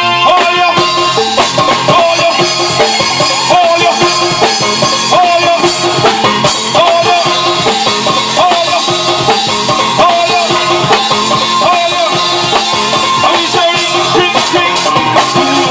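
Live band music led by a drum kit playing a busy Caribbean dance groove, with a wavering melody line over it.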